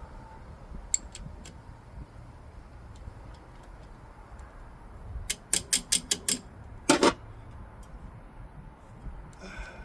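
Sharp metallic clicks and clinks of hand tools on brake line fittings: a few light clicks, then a quick run of about seven clicks around the middle and a louder clank about a second later.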